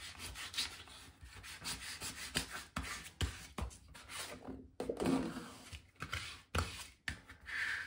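Plastic vinyl scraper rubbed back and forth over the paper backing of adhesive vinyl on transfer tape, burnishing it from the back so the vinyl sticks to the tape. It makes scratchy rubbing strokes of uneven length, with a few short clicks.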